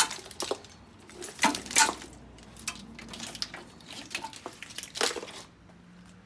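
Clicks, knocks and rattles of a wiring harness and its plastic connectors being unplugged and pulled loose, a few sharp handling sounds spread over about five seconds before it goes quiet.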